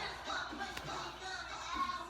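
Indistinct voices mixed with music, with a single light tap a little under a second in.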